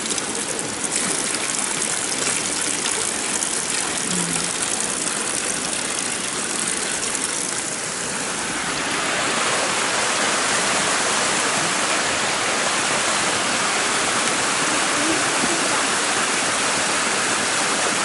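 Steady rush of running water: spring water pouring from a pipe and splashing at first, then a rocky forest stream with small falls, which gets louder and brighter about halfway through.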